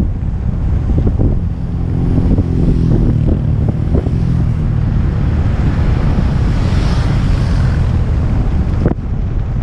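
Heavy wind buffeting on an action camera's microphone during a fast downhill ride, a steady low rumble throughout. A motorcycle engine is heard passing for a few seconds about one and a half seconds in.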